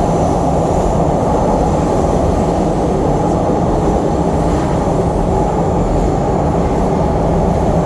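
Chicago CTA Blue Line train running at speed, heard from inside the car: a steady, loud rumble of wheels on the rails.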